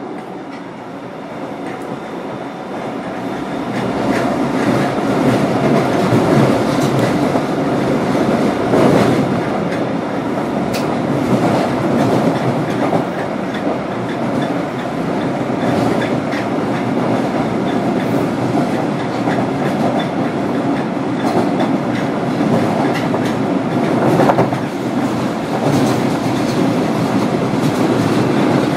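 Osaka Metro 10A series train with Hitachi IGBT-VVVF traction, heard from inside the car as it runs between stations. The running noise grows louder over the first few seconds, then holds steady, with wheels clacking over rail joints now and then.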